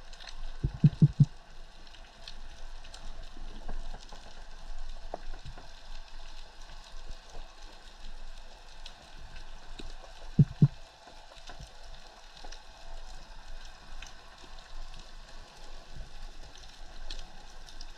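Underwater crackle, a dense steady fizz of fine clicks, with two short clusters of low thumps: three or four quick ones about a second in and three more about ten seconds later.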